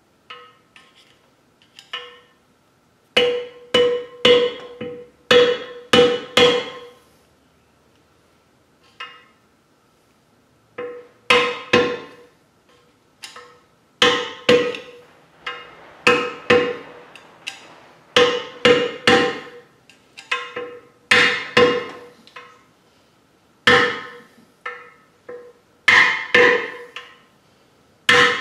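Hammer blows on a drift, driving the bearing races out of an empty NV4500 transmission case. They are sharp metallic strikes in quick bursts of two to five, each followed by a short ringing note, with pauses between the bursts.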